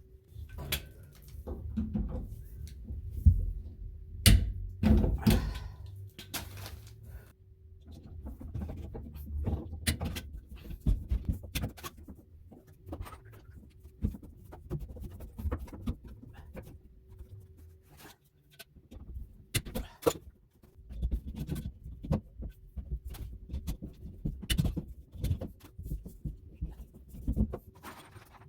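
Irregular knocks, clicks and thunks, loudest a few seconds in, over a faint steady hum.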